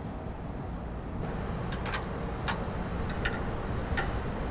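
A series of sharp metallic clicks and taps, roughly one every two-thirds of a second in the second half, from hands and a tool working on the mounting of an AC condenser fan motor, over a steady low rumble.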